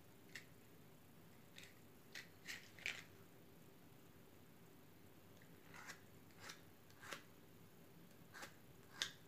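Wooden match scraped against the striker strip of a matchbox: about ten short scratchy strikes, a cluster in the first three seconds and another after a pause, the loudest near the end.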